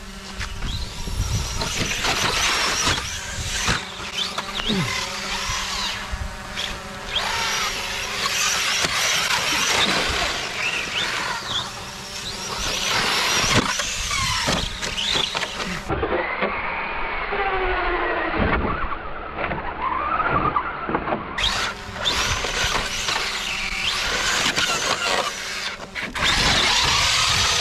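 Traxxas Slash RC truck's electric motor whining up and down in pitch as it is repeatedly throttled hard and let off, with knocks as it bashes over rough ground and snow. A drone's steady hum runs underneath.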